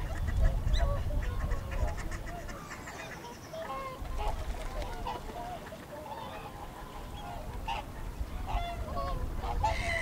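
A large flock of geese and swans calling in a continuous chorus of many overlapping honks. Wind buffets the microphone, most in the first few seconds.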